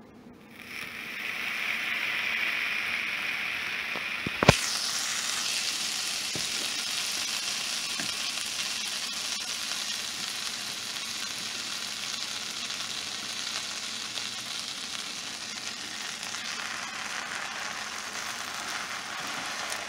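Butter sizzling in a hot nonstick skillet as a slice of buttered bread toasts in it. The steady sizzle starts about a second in, and a sharp knock comes about four and a half seconds in. After that the sizzle carries on, slowly getting quieter.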